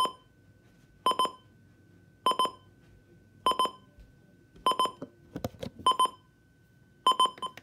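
Midland weather radio's alarm-clock buzzer going off: quick clusters of three or four high beeps, repeating about every 1.2 seconds, very loud. A few soft clicks come between two clusters about five and a half seconds in.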